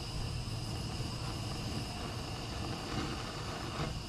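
Handheld propane torch burning steadily, its flame heating a seized locking nut on a radial drill press, with gusty wind rumbling on the microphone.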